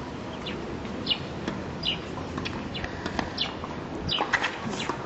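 Birds chirping in repeated short, falling calls over outdoor background noise, with a tennis racket striking the ball a little after four seconds in.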